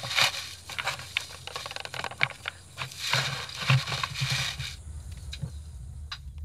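Scraping, rustling and knocking as hands, feet and clothing move over rough cave rock during a climb, mixed with rustle from the handheld camera. The noise drops away about five seconds in, leaving a few faint clicks.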